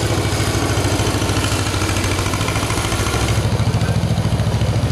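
An engine idling close by with a fast, even throb, the level steady.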